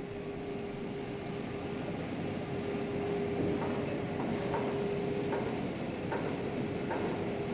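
Winches hauling a blast furnace on steel cables: a steady, high-pitched whine over a mechanical rumble. About halfway through, a regular click begins, roughly once every 0.8 seconds.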